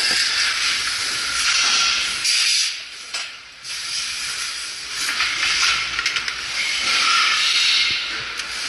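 Hissing factory noise on a motorcycle engine assembly line, rising and falling, with a brief drop about two and a half seconds in.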